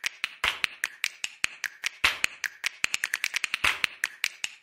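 A quick run of sharp snapping clicks, about five a second and uneven in loudness, from the end-screen outro's soundtrack.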